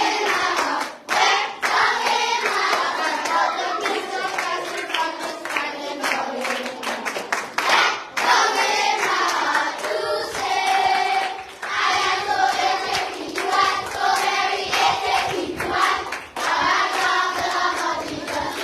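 A group of children singing a gospel song together, clapping their hands along.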